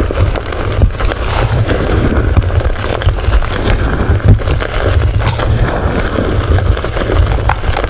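Gym chalk being crushed and crumbled close to the microphone: dense crunching and crackling, many small crackles over a steady low rumble.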